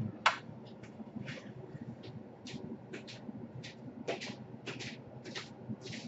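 Handling noise: a sharp click just after the start, then irregular short rustles and scrapes of hands and objects moving on a workbench.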